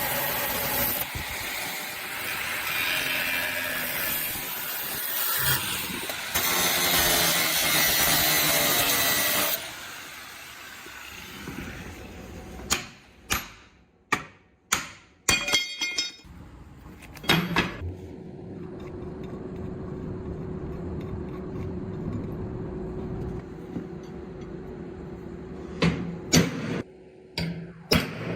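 A power tool working steel, loud and harsh for about the first ten seconds, then stopping. A handful of sharp metal knocks follow, then a steady machine hum, with a few more knocks near the end.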